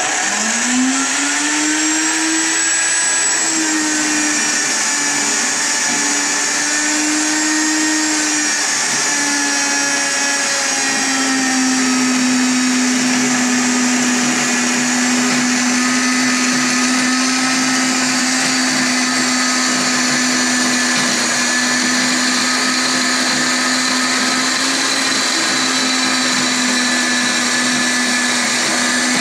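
DAKE SE 5X6 RCT benchtop horizontal bandsaw starting up, its hum rising in pitch over the first two seconds. It then runs continuously as the blade cuts down through a rectangular metal tube. The hum wavers a little in the first ten seconds or so, then holds steady.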